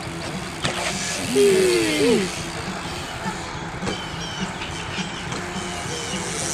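A person's voice calls out, falling in pitch for about a second, around one and a half to two seconds in, over a steady hiss of outdoor and rolling noise on the camera microphone. A brief knock comes just before it, under a second in.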